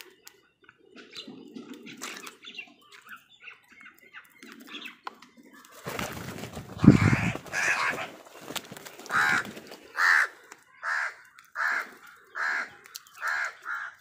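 House crows cawing: a loud burst of calls over a rushing noise about six seconds in, then single caws repeated about once a second.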